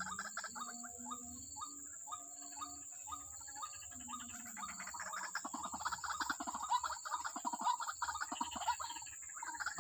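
White-breasted waterhen calling: a long series of short, repeated 'ruak' notes, spaced out at first and coming faster and denser from about five seconds in, over a steady high-pitched hum.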